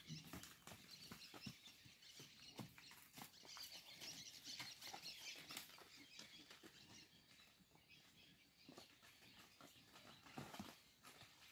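Quiet farm ambience: faint, scattered soft clicks and rustles of cattle licking and eating salt.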